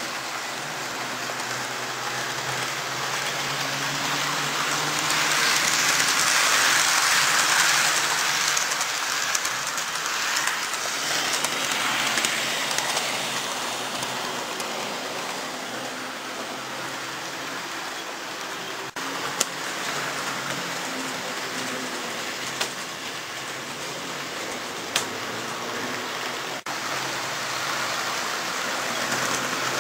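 Model trains running on the layout's track: a steady hissing rattle of wheels and motors that grows louder and then settles back, with a few sharp clicks in the second half.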